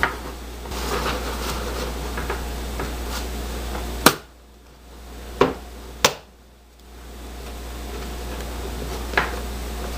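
Sharp plastic clicks and knocks from hands working the lens cartridge of an auto-darkening welding helmet in its frame, about five in all, the loudest about four seconds in, over a steady background hum that drops away for a few seconds after the loudest click.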